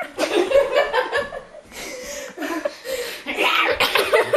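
People laughing hard in repeated, choppy bursts.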